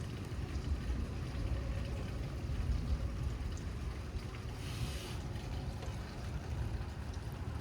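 Storm wind buffeting the microphone: a steady, fluttering low rumble, with a brief hiss about five seconds in.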